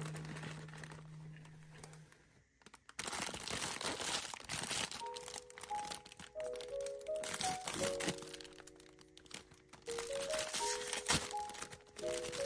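Plastic blind-box packaging crinkling and crackling as it is handled and opened, starting about three seconds in, over soft background music with a simple melody.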